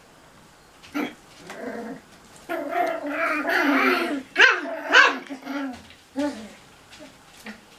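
Cocker spaniel puppies barking and growling as they play-fight, with a long wavering growling stretch in the middle and two sharp barks right after it.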